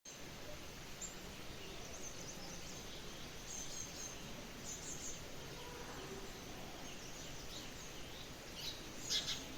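Songbirds chirping in short, scattered high calls over a steady hiss of light rain, with a brief loud burst of chirps near the end.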